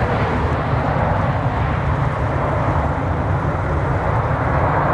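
Four jet engines of a Boeing 747 freighter rolling along the runway: a loud, steady low rumble with a broad roar over it.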